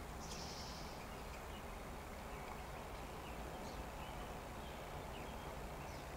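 Faint, steady outdoor background noise with a few soft, short, high chirps from small birds scattered through it.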